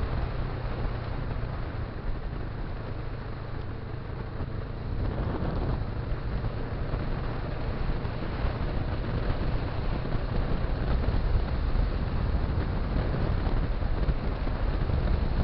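Motorcycle running steadily at road speed, a low engine drone mixed with wind and road noise; it grows louder and rougher about five seconds in.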